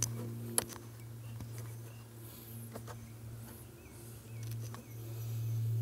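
Small clicks, taps and faint squeaks of a plastic fitting and quick disconnect being handled and screwed by hand onto a pond autofill valve, over a steady low hum.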